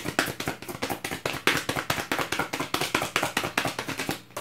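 Tarot deck being shuffled overhand, a fast run of soft card slaps, several a second, stopping just before the end.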